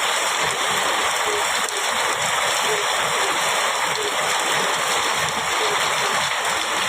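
Heavy rain falling steadily in an even hiss. Under it, a frog gives short low calls at a regular pace, a little under two a second.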